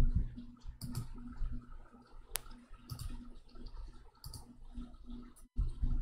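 A few scattered, irregular light clicks over a faint low hum, with one sharp click near the middle.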